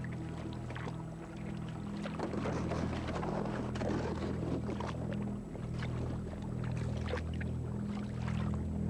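Kayak paddle blades dipping into calm water, splashing and dripping stroke after stroke, over low sustained synthesizer-like chords that change every second or two.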